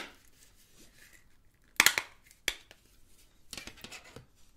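Plastic back cover of a Sony Xperia E1 phone being pried and unclipped. There is a sharp click at the start, a loud cluster of snapping clicks a little under two seconds in, another click half a second later, then a run of lighter clicks.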